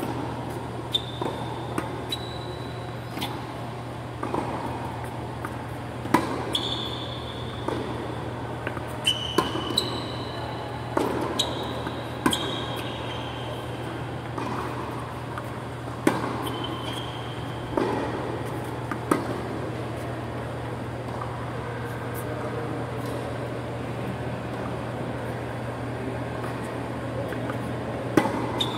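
Tennis ball struck by rackets and bouncing during a rally on an indoor hard court: irregular sharp hits, most of them bunched in the middle and one near the end, with short high squeaks of shoes on the court. Underneath runs the steady low hum of the hall's big wall fans.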